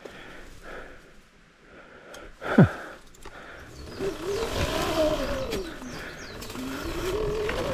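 Sur Ron Ultra Bee electric dirt bike's motor whining, its pitch rising and falling with the throttle. About two and a half seconds in comes a brief loud whine that drops steeply in pitch. From about four seconds the whine climbs and falls in long sweeps.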